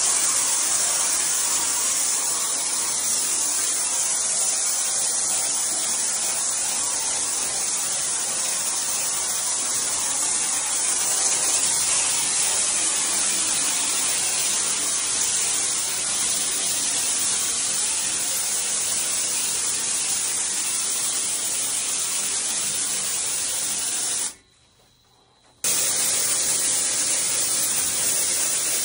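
Spray foam insulation hissing steadily from the spray gun of a DAP 323 foam insulation home kit as it coats a wall. The spray breaks off for just over a second near the end, then starts again.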